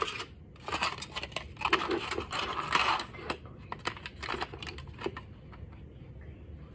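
Aluminium foil crinkling as it is crumpled and pressed down over a bowl as a cover: dense crackling for about the first three and a half seconds, then only a few light crackles.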